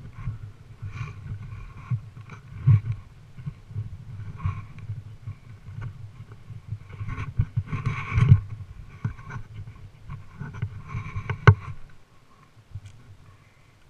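Suzuki RM-Z250 dirt bike's four-stroke single-cylinder engine running at low revs over rough ground, heard from a helmet camera, with several sharp knocks, the loudest about eleven and a half seconds in. The engine goes quiet about twelve seconds in as the bike stops.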